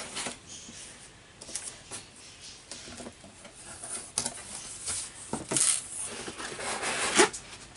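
Cardboard shipping carton and molded pulp packing inserts being handled: irregular scraping, rustling and light knocks as the flaps are opened and the inserts touched, louder about five and a half seconds in and with a sharp knock near the end.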